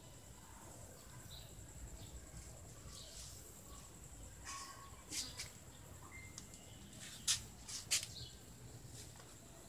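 Quiet outdoor background with a few short, high bird chirps scattered through it, and a couple of sharp clicks near the end.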